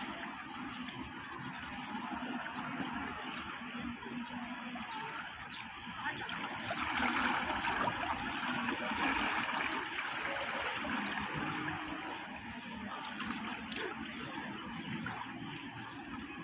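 Shallow seawater lapping and trickling among rocks, swelling a little about halfway through.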